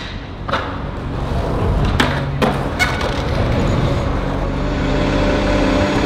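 City street sound: a steady low traffic rumble that grows louder, with a few sharp knocks and, from about halfway through, a faint steady hum.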